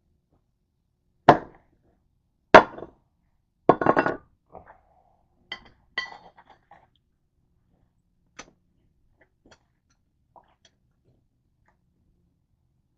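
A handful of sharp clanks and clinks of hard objects knocking together, about five in the first six seconds, followed by a few faint ticks.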